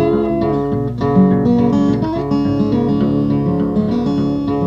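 Background music: an instrumental led by plucked guitar notes and strums.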